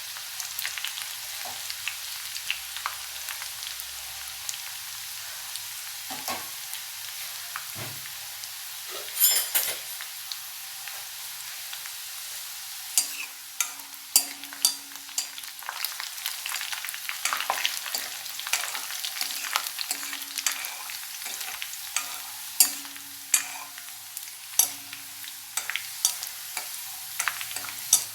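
Shallots and dried red chillies sizzling and crackling in hot oil with mustard seeds, being stirred in the pan. From about halfway, the spoon knocks against the pan again and again, each knock with a short ring.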